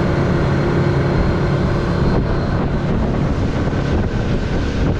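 Small fishing boat under way at speed: its engine running steadily, with wind and water noise rushing past.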